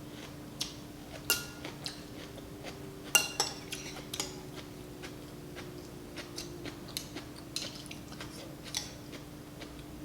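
Metal utensils clinking and tapping against a soup bowl while eating noodle soup: scattered sharp clinks, a few ringing briefly, the loudest about a second and about three seconds in. A steady low hum runs underneath.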